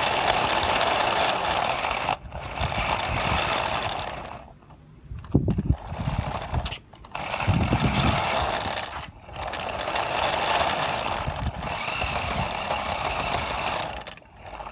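Small electric RC car motor and gears whirring in repeated bursts of about two seconds as the throttle is applied and released, with a few low knocks in the middle.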